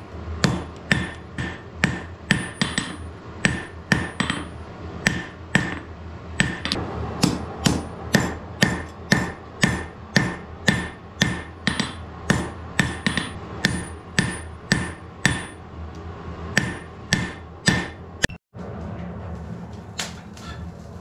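Hand hammer striking a red-hot iron bar on an anvil, about two blows a second, each with a short metallic ring. The blows stop about eighteen seconds in, leaving quieter, scattered workshop sounds.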